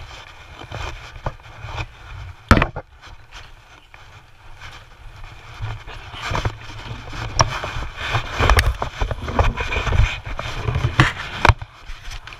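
Handling noise from a body-worn action camera: clothing rubbing against the microphone with a low rumble, scattered clicks and knocks from footsteps and movement, and one sharp knock about two and a half seconds in.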